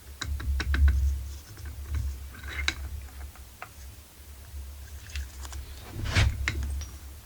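Scattered light clicks and taps from small chainsaw engine parts being handled during assembly, with a louder knock about six seconds in, over a steady low hum.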